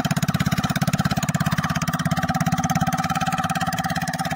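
Motorcycle with its silencer removed, running at low speed with a fast, even train of open exhaust pulses; very loud.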